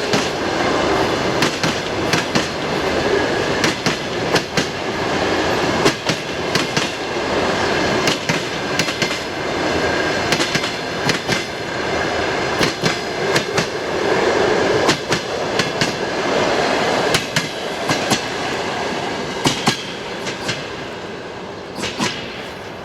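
Passenger train passing at speed on jointed rail, its wheels clattering over the rail joints in repeated groups of clicks over a steady rolling rush. The sound grows quieter near the end.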